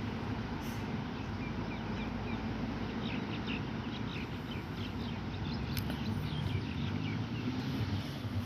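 Small birds chirping in a quick run of short notes, over a steady low rumble.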